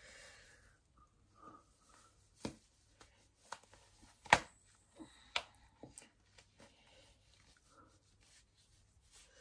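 Soft rustling and scattered light clicks from handling a skin-coloured nylon wig cap as it is stretched on over the hair. The loudest sound is a sharp click about four seconds in.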